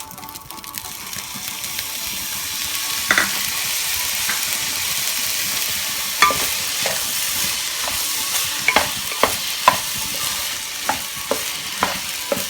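Fried rice being stir-fried on high flame in a heavy-bottomed kadai: a steady sizzle that builds over the first second or two, with sharp clinks of the spatula against the pan, a few at first and more often in the last few seconds.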